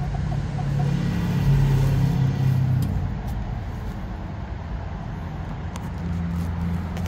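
Low, steady engine hum of a motor vehicle, swelling about a second in and easing off after about three seconds.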